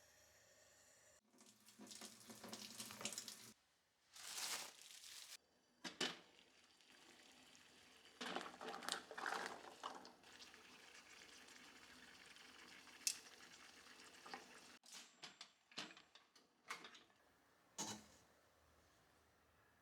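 Kitchen work sounds: water running from a tap into a sink in several short spells, with a few sharp clicks and light knocks.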